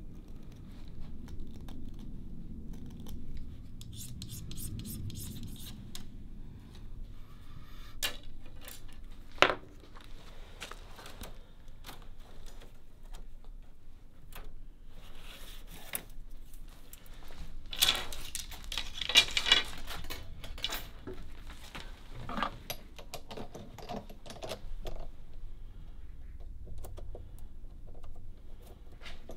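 Small hand knife shaving the tip of a thin bamboo rod with fine scraping strokes, then thin steel rods clicking and rattling against each other as they are handled. Scattered knocks and clicks run throughout, with the densest rattle a little past the middle.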